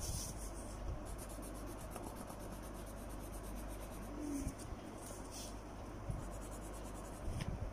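Pencil shading on paper: a soft, steady scratching with a few louder strokes.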